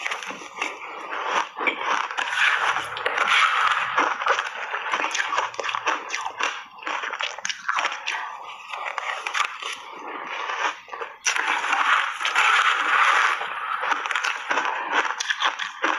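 Crunching and chewing of mouthfuls of shaved ice dusted with matcha and milk powder: a dense crackle of ice breaking between the teeth, louder in bursts as fresh bites are taken.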